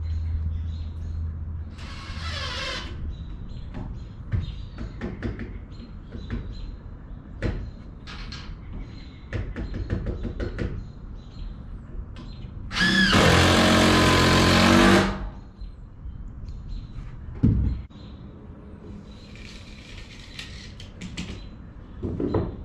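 Scattered knocks and clicks of building work on a plywood floor, with one loud power-tool run lasting about two seconds midway.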